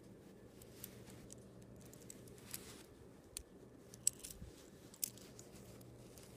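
Faint rustling of bedding and handling of the phone, with a few small clicks and taps, the sharpest about four and five seconds in, over a low steady hum.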